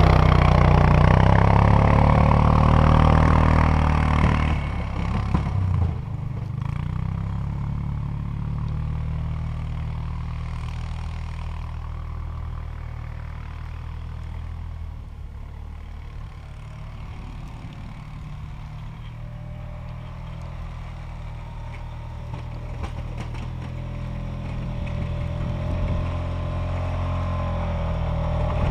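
ATV engine running as the quad plows snow with a front blade. It is loud close by for the first few seconds, fades as the machine drives away, and grows louder again near the end as it comes back.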